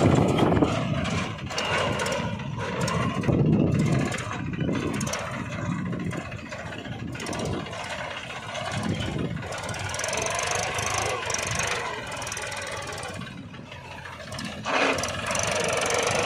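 Small engine of a homemade mini tractor running, rising and falling as it pulls a loaded trailer.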